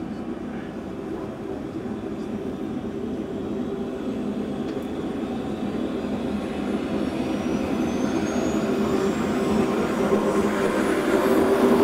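Small jet turbine engine on a subscale research UAV, running just after start and spooling up. A thin high whine rises steadily in pitch over a steady rushing noise, growing louder throughout.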